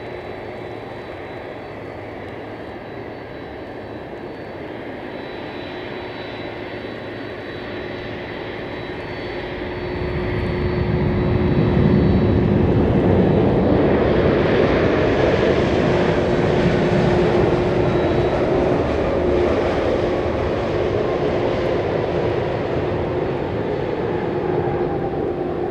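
Boeing 767-300 twin turbofan engines running with a steady whine. About ten seconds in they rise sharply to full power for the takeoff roll on a wet runway. The loud engine noise then holds, and a tone in it falls steadily in pitch as the jet passes.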